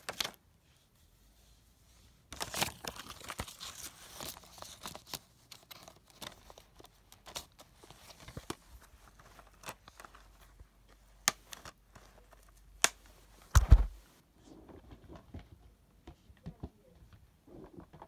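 Blu-ray packaging and its paper insert being handled: a burst of paper and plastic rustling and crinkling about two seconds in, then scattered clicks and taps, with one loud bump later on.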